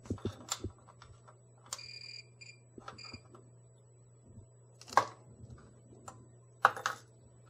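A digital multimeter in diode-test mode beeps three times in short succession while its test clips and probes click and knock against the terminals of an IGBT module. A steady low hum runs underneath.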